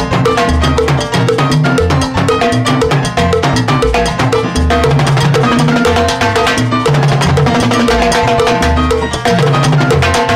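Timbal solo: timbales struck with sticks in fast, dense rhythms, with a salsa band's pitched accompaniment playing steadily underneath.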